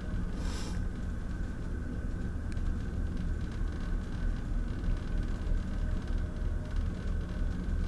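Steady low rumble of the Sunflower Sapporo ferry's engines, heard inside a passenger cabin while the ship is under way, with a faint steady high hum and a brief hiss about half a second in.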